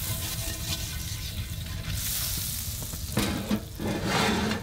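Butter sizzling and foaming in a hot cast-iron skillet of oil, with a spatula pushing the melting pat around. About three seconds in, a run of louder scraping strokes against the pan begins.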